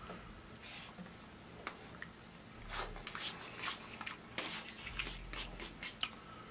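A man chewing a mouthful of ramen noodles close to the microphone, with wet mouth clicks and smacks. The clicks are sparse at first and come thick and fast from about three seconds in.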